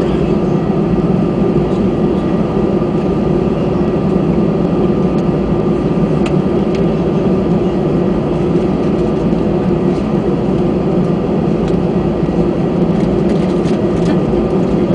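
Steady engine and cabin noise inside an Airbus A319 airliner on the ground at low power, with a faint steady whine above it.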